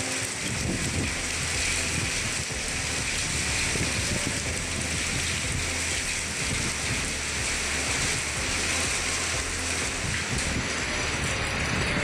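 Steady rain falling, an even hiss with a faint low hum beneath it.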